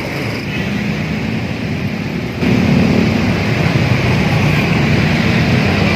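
A bus engine running close by amid road traffic noise, getting louder about two and a half seconds in.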